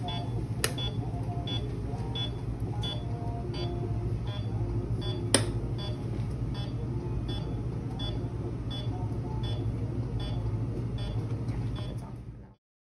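Anaesthesia patient monitor beeping steadily, about twice a second, over a low steady hum of equipment, with one sharp click about five seconds in. The sound cuts off suddenly near the end.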